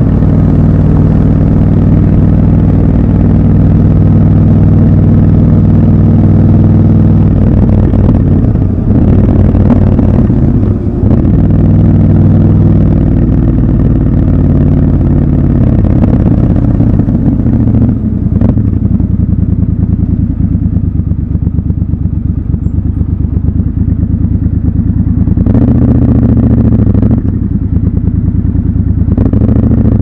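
Triumph Scrambler 1200 XC's parallel-twin engine running on the move, its revs rising and falling a few times; it runs lower and quieter through the middle and picks up again about 25 seconds in.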